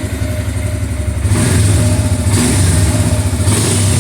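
Royal Enfield Scram 411's 411 cc single-cylinder engine running warm at idle, getting louder and busier about a second in as the revs come up.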